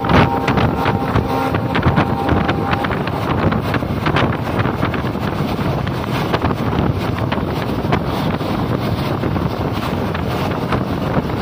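Passenger train running at speed, heard at an open carriage doorway: steady wind buffeting the microphone over the running noise of the coach, with irregular clacks and rattles from the wheels on the track.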